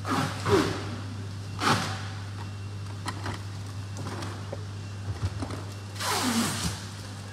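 Handling noise: rustling swishes as PVC pipe fittings are moved about in bubble-wrap packaging, three louder ones and a few light knocks, over a steady low hum.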